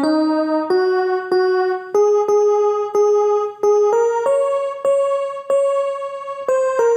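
Casio CTK-2550 portable electronic keyboard playing a simple melody one note at a time, about two notes a second, climbing in pitch and then dipping back slightly near the end.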